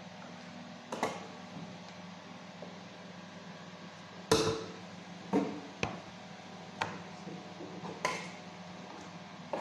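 A serving utensil clinking and knocking against a stainless steel pot as food is scooped out, about six separate strikes with the loudest about four seconds in, over a steady low hum.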